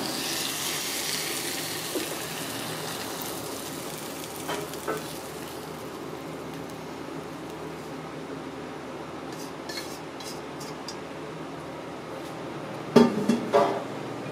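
Hot wok sizzling with stir-fried greens and conch, the hiss fading as the food is pushed out onto a plate with chopsticks, with light clinks of chopsticks and wok against the plate. A few sharp clattering knocks near the end.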